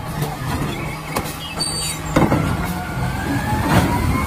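Automated side-loader garbage truck at work: its engine runs steadily while the hydraulic arm lifts and dumps a wheeled trash cart, with several sharp knocks from the cart and arm and a rising hydraulic whine near the end.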